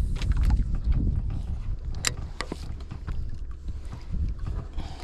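Wind buffeting the microphone over water sloshing around a small boat, with a few sharp clicks and knocks from handling, the loudest about two seconds in.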